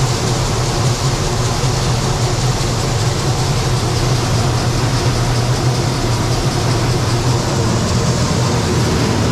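Combine harvester running steadily while harvesting corn, a continuous low engine hum with even machine noise over it.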